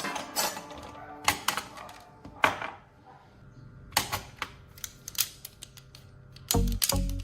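Irregular sharp clicks and taps, about a dozen spread unevenly, with two short, louder low-pitched bursts near the end.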